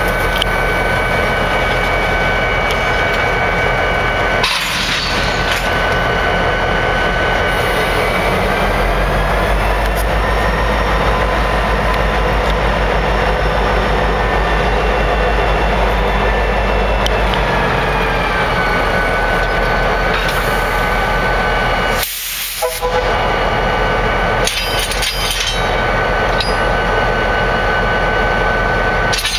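EMD GP38-2 diesel-electric locomotives' two-stroke V16 engines idling with a steady hum and whine. From about nine seconds in, an engine throttles up, its pitch rising and holding, then drops back to idle near seventeen seconds.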